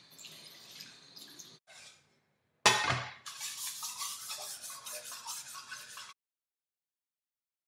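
Tap water running into a steel sink and over a Chinese cleaver's blade as a hand rubs it clean, with scratchy rubbing and small clinks. A knock comes just before the three-second mark, and the sound cuts off suddenly about six seconds in.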